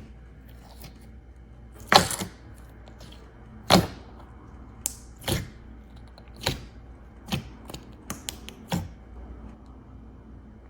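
Slime being played with by hand, giving a series of sharp clicking pops about one every second or so, the loudest about two seconds in.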